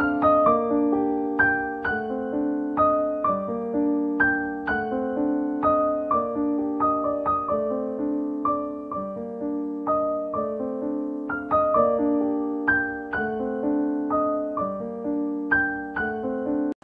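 Piano music: notes struck in a steady, flowing pattern, each left to ring under the next.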